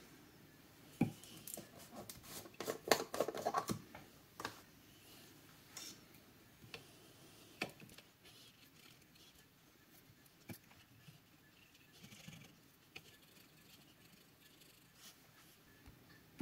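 Light clicks and knocks from a jar of alcohol being handled and opened, bunched in the first few seconds. Then scattered quiet taps and faint scratching as a swab on a wooden stick scrubs the freshly soldered circuit board clean.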